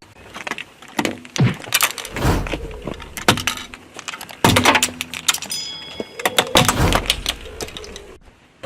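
Car tyre rolling over eyeglasses, the frames and lenses cracking and crunching in an irregular run of sharp snaps. The run builds twice to a heavier crunch with a low rumble.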